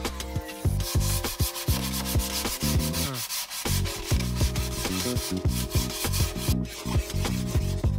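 Sandpaper rubbed by hand over wood in repeated strokes: the final sanding before lacquer. Background music with a steady beat plays under it.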